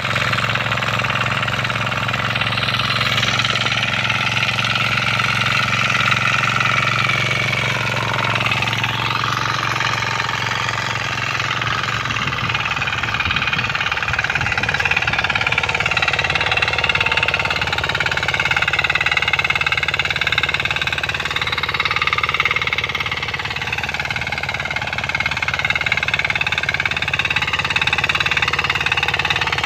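Diesel engines of 6 hp power weeders running steadily under load as their rotary tines till the soil, the engine note wavering slightly as they work.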